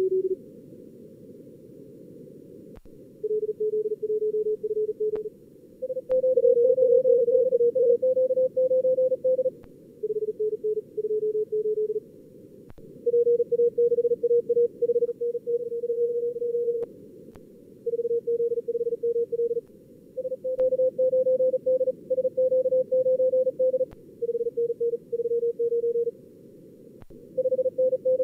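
Fast Morse code (CW) contest exchanges from a simulated pileup, keyed at about 38 words per minute. The tones sit at several pitches around 400–550 Hz, and different stations' signals follow and overlap one another. Under them runs narrow-filtered receiver hiss.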